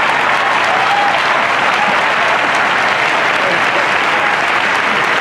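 A large audience applauding steadily, a dense even clatter of many hands, with a few voices rising faintly over it.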